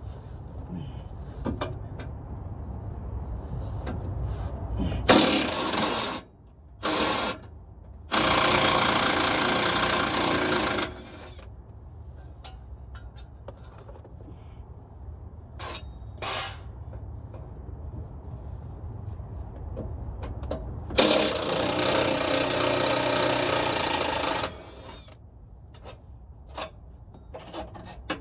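Impact wrench run in four bursts, two short ones about five and seven seconds in, then one of about three seconds and a last of about three and a half seconds, loosening bolts on the underside of a vehicle while its transmission is being removed. A few light knocks of metal come between the bursts.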